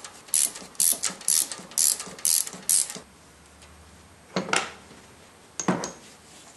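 Ratchet wrench clicking through six quick strokes, about two a second. Two louder single clunks follow near the end.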